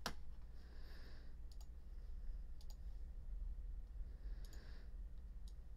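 A few sharp computer mouse clicks, about four spread over a few seconds, the first the loudest, over a low steady hum.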